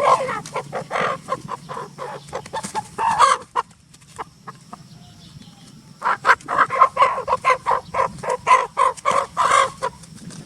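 Rapid runs of short, harsh animal calls: a burst at the start, another about three seconds in, then a longer dense run of calls from about six seconds to nearly the end.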